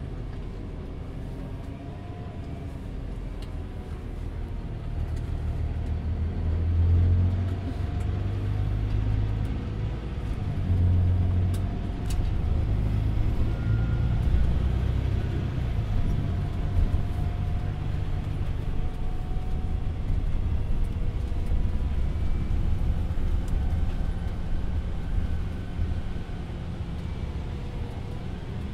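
Volvo 8900LE city bus under way, heard from inside the passenger cabin: a low engine and road rumble that grows louder about six seconds in and eases off near the end. Faint whines slide up and down in pitch over it.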